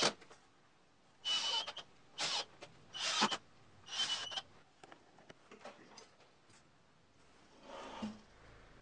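Small cordless drill-driver driving screws into a wooden rail in four short bursts, each with a high motor whine, over the first half. Near the end, metal ball-bearing drawer slides are pulled out with a brief rolling rattle.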